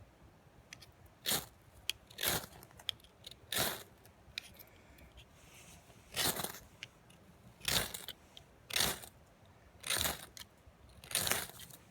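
Mora knife struck repeatedly against a fire starter to throw sparks: eight short, sharp scrapes spaced about a second or more apart.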